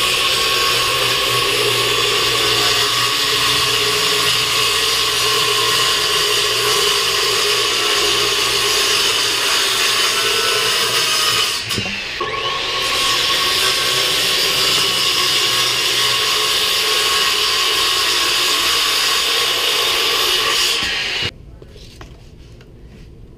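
Worm-drive circular saw cutting 3/4-inch plywood, running with a steady whine. The cut breaks off briefly about halfway through, then resumes, and the saw stops abruptly near the end.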